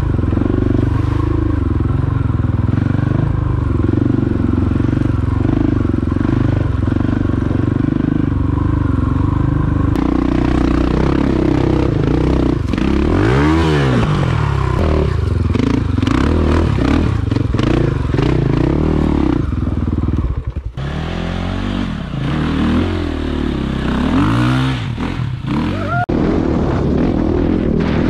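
KTM 450 EXC-F single-cylinder four-stroke dirt bike engine running while being ridden off-road, its revs rising and falling sharply a few times, with clatter from the bike over rough ground.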